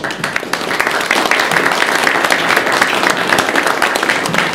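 Audience applauding: many people clapping together, building over the first second and then holding steady.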